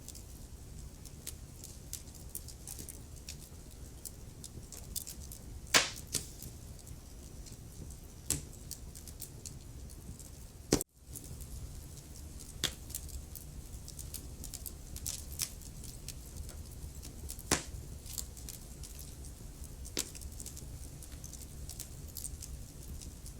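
Wood fire crackling in a fireplace: a steady low rumble under scattered sharp pops and snaps, five of them much louder than the rest. The sound drops out for an instant about eleven seconds in.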